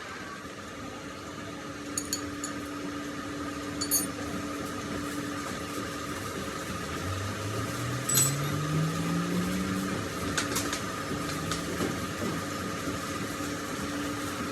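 Workshop machinery running with a steady hum, a few light metallic clinks, and a motor tone that rises in pitch for about three seconds starting about seven seconds in.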